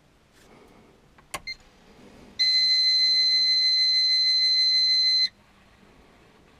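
A click, a short beep, then a steady high electronic warning tone held for about three seconds that cuts off suddenly: a dashboard warning buzzer sounding as the ignition is switched on and the add-on gauges power up.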